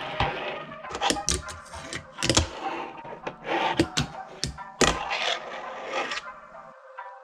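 Background music with a percussive beat; the bass drops out near the end.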